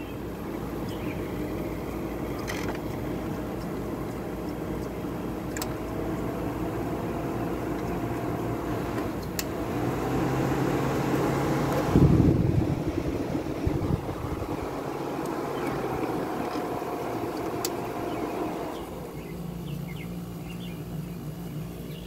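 Late-1980s Fedders (Room-Air badged) window air conditioner running and cooling, with a steady hum and a faint whine that wavers slightly in pitch. About twelve seconds in, a brief rush of noise is the loudest sound.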